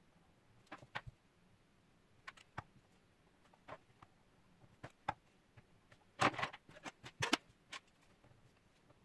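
Light clicks and knocks of small objects handled on a wooden desk: a pen, a ruler and makeup tubes being picked up and set down. A few scattered taps come first, then a quicker cluster of clatters about six to eight seconds in.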